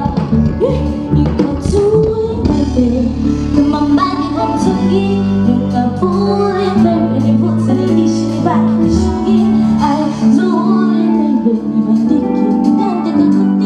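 Music with a woman singing over guitar.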